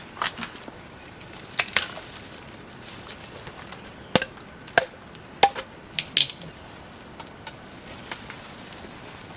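Sharp, irregular knocks and cracks, about eight to ten of them, from bamboo shoots being cut or broken off while they are harvested.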